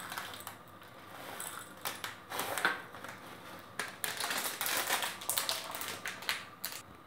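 Dry popcorn kernels rattling into a small ceramic cup, followed by a string of sharp clicks and crinkles as the plastic bag is handled and the cup is set down.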